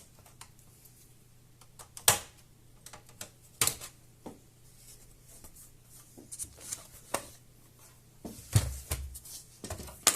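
Scattered sharp clicks and taps of plastic parts and small tools as a Toshiba Satellite C50 laptop is taken apart, over a faint steady low hum.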